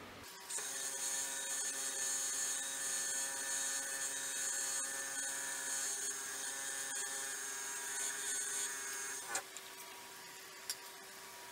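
A wood lathe, a Nova Galaxi DVR, starts about half a second in and spins a resin-filled burl bowl with a steady motor whine, while a paper towel held against the turning bowl adds a hiss. A little after nine seconds the lathe is switched off and the sound drops, leaving a faint fading whine.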